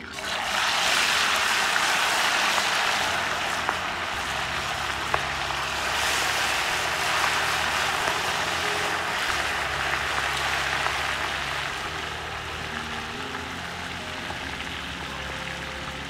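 Whole parrotfish deep-frying in a pot of hot oil: a loud sizzle that starts suddenly as the fish goes in, then a steady bubbling hiss that eases a little over time.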